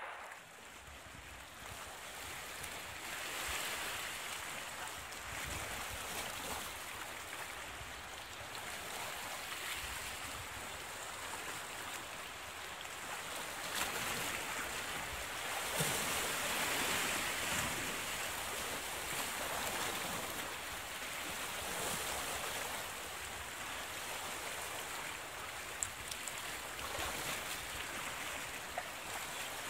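Sea waves washing against a rocky shore: a steady rush of surf that swells and eases.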